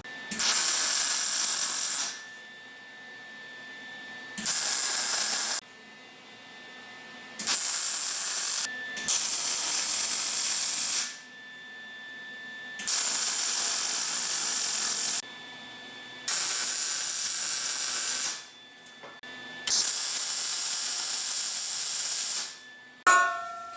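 Electric arc welder, welding in seven short runs of about one to two and a half seconds each. Each run is a steady hiss that starts and stops sharply.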